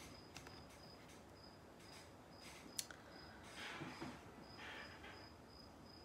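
Near silence with a faint high chirp repeating evenly, about three times a second. A single sharp click comes about three seconds in, followed by soft rustling as a phone is handled.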